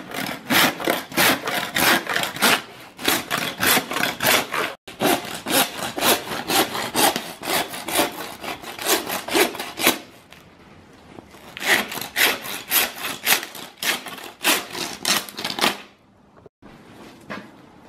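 Hand saw cutting through the rib bones of a beef carcass, in quick back-and-forth strokes about three a second. It pauses briefly about two-thirds of the way through, then saws on and stops shortly before the end.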